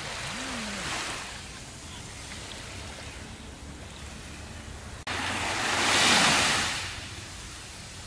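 Small waves washing onto a sandy beach. A gentle wash comes near the start; then, after a sudden break in the sound about five seconds in, a louder wave rushes up the sand and fades away a couple of seconds later.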